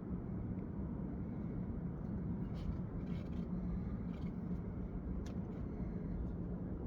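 Steady low outdoor rumble, with a few faint, sharp pops about two to five seconds in.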